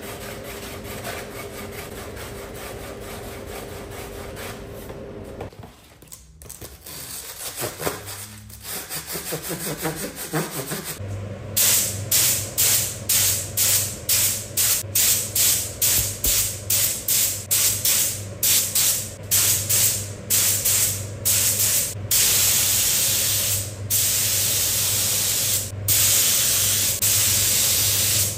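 A sanding pad rubbing over a carbon fibre part by hand for the first few seconds. Then, from a little before halfway, a spray gun hisses in quick short bursts, about two a second, which grow into longer passes near the end, with a steady low hum underneath.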